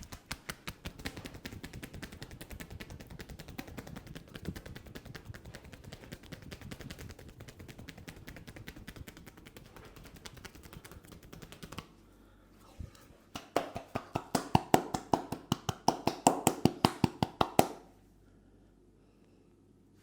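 Rapid hand percussion of an Indian head massage. First comes a long stretch of quick, light tapping. After a brief pause there are about four seconds of louder slaps, around five or six a second, which then stop.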